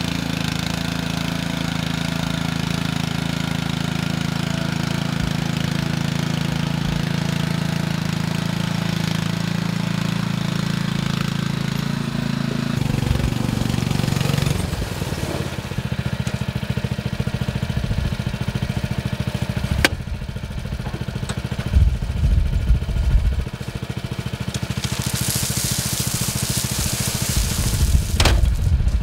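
Small engine of an Easi-Loader micro-dumper running steadily. Partway through its sound changes to a faster, choppier running. Near the end a loud rush of gravel pours out of the tipped skip.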